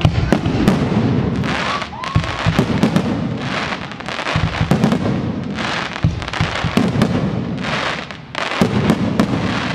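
A dense barrage of aerial firework shells: repeated sharp bangs, with bursts of crackling roughly once a second and a rising whistle about two seconds in.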